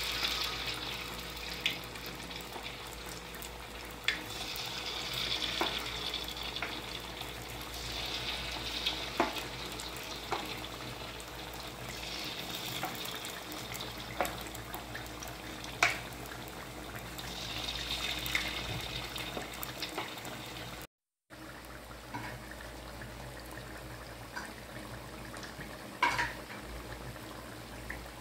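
Battered cempedak pieces deep-frying in a wok of hot oil: a steady sizzle with occasional sharp pops from the oil.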